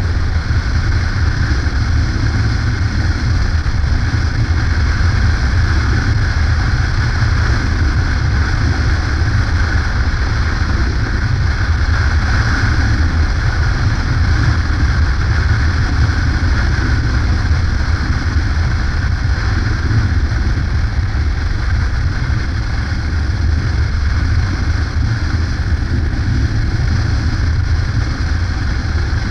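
Yamaha Ténéré motorcycle cruising at steady speed on a paved road: a constant low rumble of wind buffeting the microphone over engine and tyre noise, with no change in pace.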